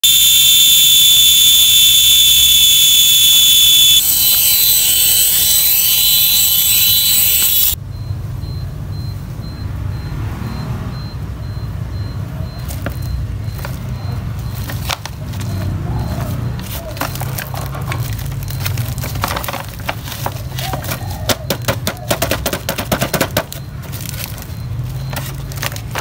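A loud, steady high-pitched sound for the first eight seconds, changing about four seconds in. Then a plastic-wrapped, taped parcel is handled and turned over, with the plastic crinkling and crackling, most busily in the second half.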